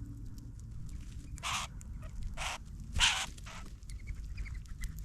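Birds at a backyard ground feeder: four short, harsh, noisy calls or flutters in quick succession, then a few faint high chips near the end.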